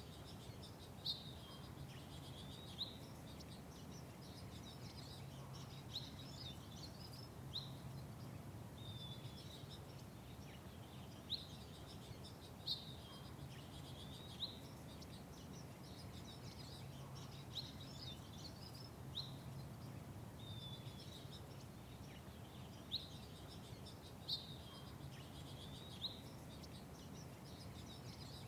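Small birds chirping in short, sharp single notes, one every second or two, over a steady low background rumble.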